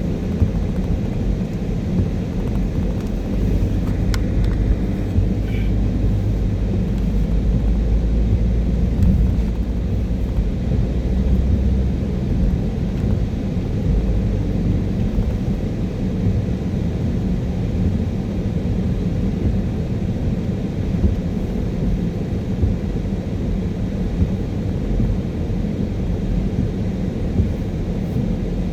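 Car driving on a wet motorway: a steady low rumble of tyres and engine, heavier and deeper from about four to twelve seconds in.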